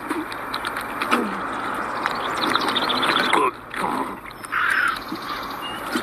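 A crow caws once about four and a half seconds in, over steady outdoor background noise with scattered short sounds.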